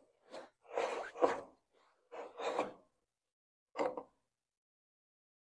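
Stevens hubcap threading tool being turned on a Model T front hub, a series of short metal scraping strokes as it chases the worn hubcap threads so the hubcap will screw on without fighting; the last stroke comes about four seconds in.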